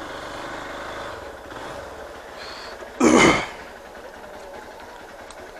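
Hero Xpulse 200 4V motorcycle's single-cylinder engine running at low speed, easing off after about a second and a half. About three seconds in there is a brief, loud burst of noise.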